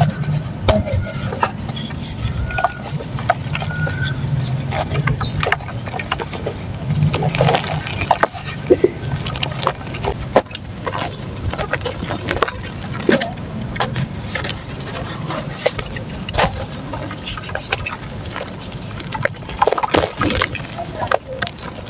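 Soft dry mud chunks crumbling into water and being worked into a wet paste, with irregular crackles and clicks.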